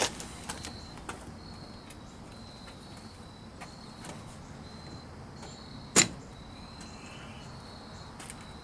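Posi-Lok front-axle actuator's shift fork snapping across with a single sharp click about six seconds in, as its control cable is pushed to the end of its travel. Faint high chirps come and go in the background.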